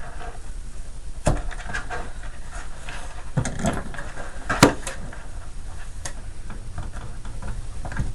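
Hand disassembly of a mini fridge: scattered sharp knocks and clicks of tools on metal and plastic, with some scraping, while a stuck wire is worked loose from the housing. The loudest knock comes about halfway through.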